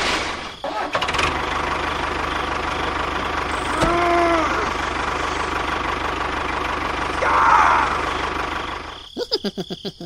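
Tractor engine running steadily with a low, even chugging beat. About four seconds in there is a short pitched call, and near the end the engine gives way to a quick run of short pulses.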